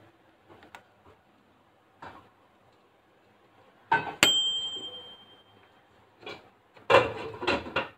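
Microwave oven bell dings once about four seconds in, a single bright ring that fades over a second or so, just after a click. Soft clicks come before it, and a cluster of knocks and clatter comes near the end.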